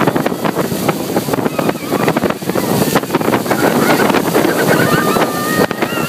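Niagara Falls roaring at close range: a loud, steady rush of plunging water, with wind buffeting the microphone. A few faint higher calls or voices come through near the end.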